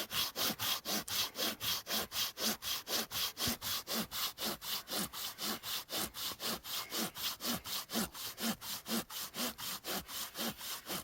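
Hand saw cutting through a firewood log with quick, even back-and-forth strokes, about four or five a second, that stop near the end.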